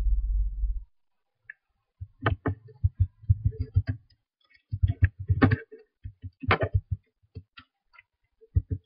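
Typing on a computer keyboard: irregular key clicks with dull thuds, in quick runs broken by short pauses.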